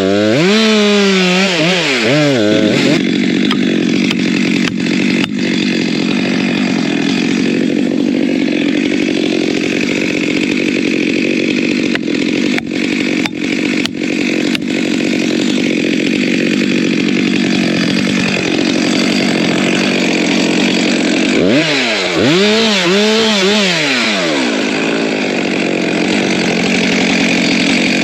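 Chainsaw cutting wood: the engine is revved up and down a few times near the start, then held at high speed through a long cut whose pitch sags partway through as it loads up. Near the end it is revved up and down again.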